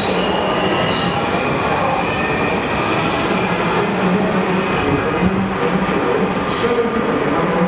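Breda 3000-series Washington Metro railcars pulling out and running away down the track: a steady loud noise of wheels on rail, with thin high tones held over it.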